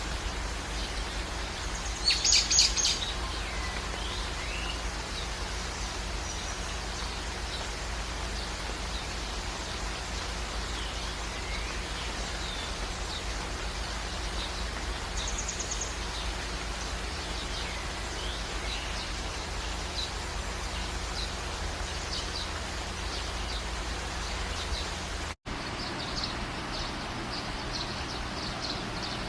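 Steady rain hiss with songbirds chirping and calling throughout, and a loud burst of rapid bird calls about two seconds in. The sound cuts out for an instant near the end where the recording is spliced.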